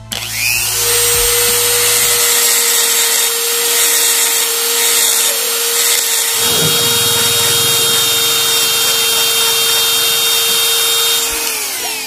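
Handheld electric rotary tool running at high speed with a small porting bit, grinding metal off a motorcycle brake pedal arm. A steady high whine sits over a harsh grinding hiss, and its pitch falls as the tool winds down near the end.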